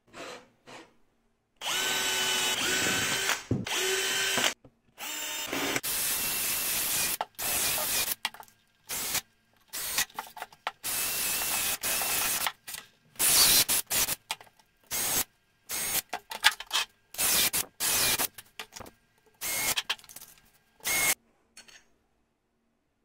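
Cordless drill running in repeated short bursts against plywood, a motor whine that starts and stops about a dozen times, the bursts getting shorter towards the end.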